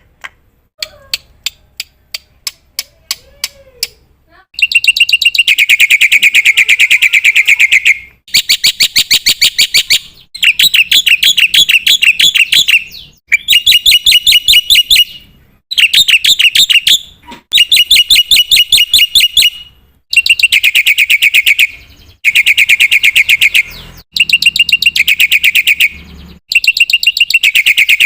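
Black-winged myna (jalak putih) calling. It starts with a few seconds of sparse sharp ticking notes, then gives loud bursts of rapid chattering notes, each about two seconds long, over and over with short pauses between.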